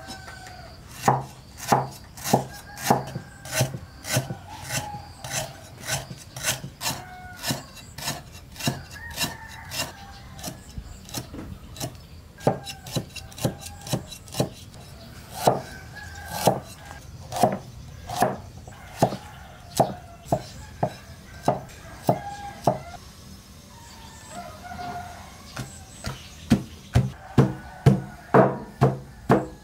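A heavy knife chopping food on a wooden cutting board: hard, regular knocks about one to two a second, pausing briefly late on, then quickening near the end.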